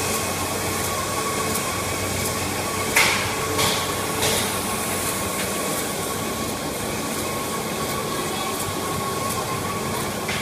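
TM-700 envelope window-patching machine running: a steady mechanical clatter with a faint steady whine. Three sharp knocks come about three to four seconds in.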